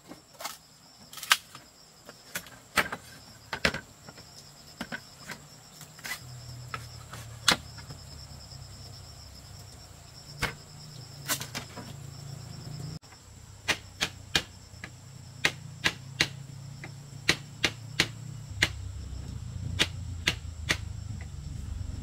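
Irregular sharp knocks and taps, a few a second at most, from hand work on materials, over a steady high-pitched insect buzz. A low steady hum joins about six seconds in.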